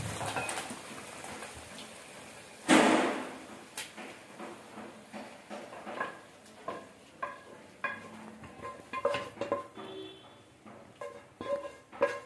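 Serving spoon scraping and clinking against a metal cooking pan and a glass bowl as thick curry is ladled out: scattered short knocks with brief ringing, and one louder scrape about three seconds in.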